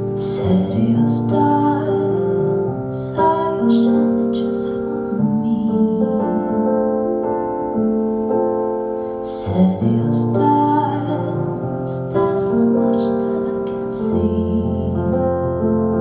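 Calm keyboard music with long held chords and a slow melody, played as the radio demonstration of a Kinter MA-500 mini hi-fi amplifier.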